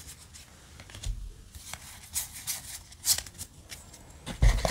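Yu-Gi-Oh! trading cards handled and tapped together into a stack, a scatter of soft clicks and slaps. Near the end, the crinkle of a foil booster pack being pulled from its box.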